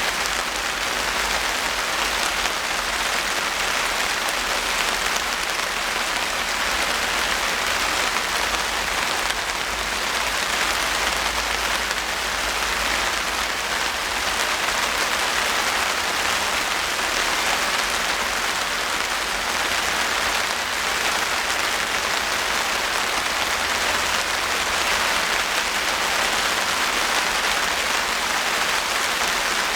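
Steady rain falling, a dense even patter of drops on wet surfaces.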